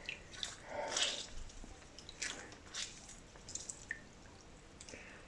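Spiced kahwa tea simmering in a pot: faint, irregular soft bubbling pops, spaced roughly a second apart.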